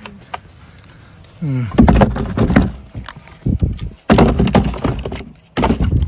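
Split cherry firewood knocking and clattering together as pieces are picked up and dropped onto a pile, in several loud irregular bursts over the last four seconds.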